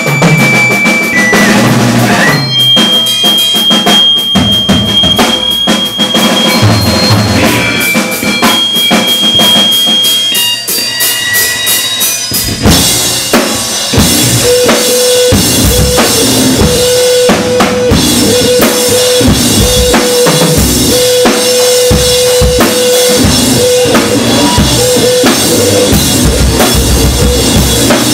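Loud noise-rock from a drum kit and guitar: dense drum hits under high, held squealing tones. About twelve seconds in, a heavier section kicks in, with pounding kick drum and a note held again and again.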